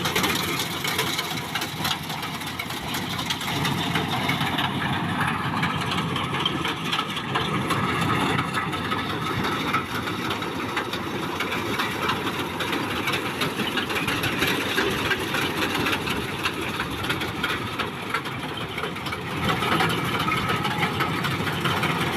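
Maxxi Bimo 102 combine harvester running steadily, its engine and machinery making a continuous dense mechanical noise that grows a little louder near the end.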